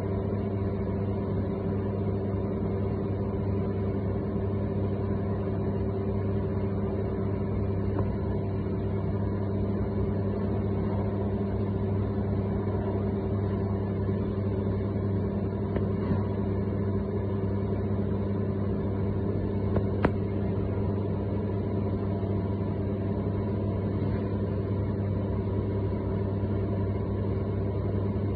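30 kg spiral dough mixer running with an empty bowl: a steady electric motor hum, with a small click about 16 seconds in and a sharper one about 20 seconds in.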